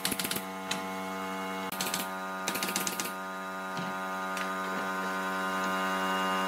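Pneumatic brad nailer firing quick strings of nails into pine slats. Rapid clatters of shots come at the start and again about two to three seconds in, over a steady mechanical hum.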